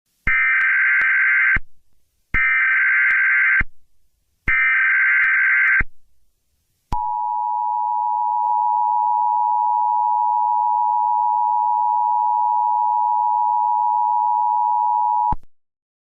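Emergency Alert System signal: three short bursts of SAME header data, each about a second long, then the two-tone EAS attention signal held steady for about eight seconds before it cuts off. It announces that an emergency alert message follows.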